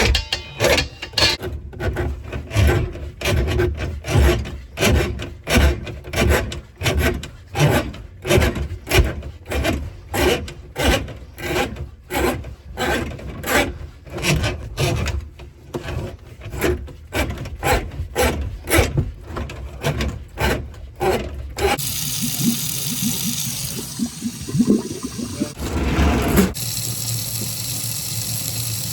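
Rhythmic scraping strokes, about two a second, for some twenty seconds, then a steady rushing noise.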